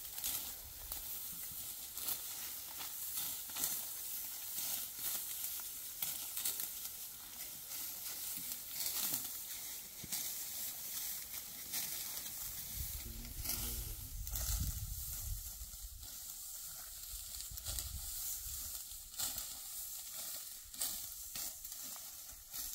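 Dry wheat stalks rustling and crackling with many short sharp crackles, as the ripe wheat is cut and handled by hand. A low rumble comes in near the middle for a few seconds.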